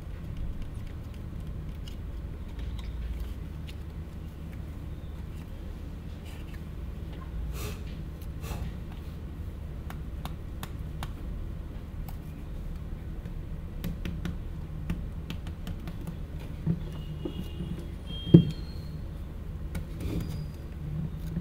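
Steady low room hum with scattered small clicks and rustles as a plastic bottle and a drink carton are handled close by, and one sharp knock about eighteen seconds in.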